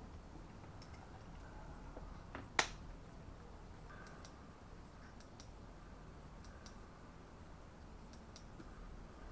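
Small plastic clicks and taps from handling a twin-LED light housing, with one sharper click about two and a half seconds in and fainter paired clicks every second or so.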